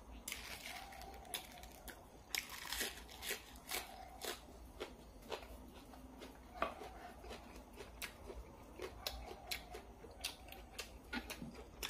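A man chewing a mouthful of stir-fried field rat, with irregular short crunches and clicks every second or less.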